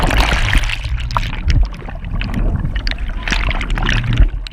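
Water heard through an underwater camera's housing: a muffled rush of churning water full of bubbles, with many scattered small pops and clicks.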